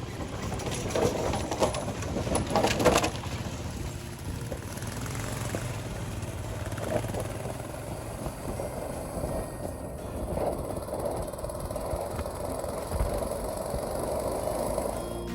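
A motor vehicle driving, with a steady low hum of engine and road noise and louder rough noise about one to three seconds in.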